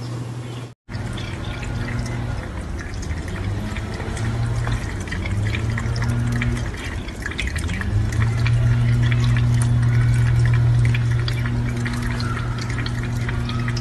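Water running and splashing from a kitchen faucet into a stainless steel sink, with many small drips and splashes over a steady low hum.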